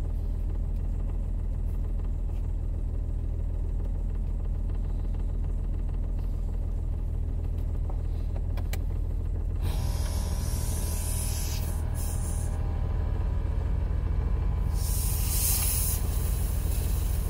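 Car engine idling cold, a steady low rumble. About ten seconds in, a hiss of air starts and stops some three seconds later, then hisses again briefly near the end, as air from the car's built-in load-leveler compressor is let out.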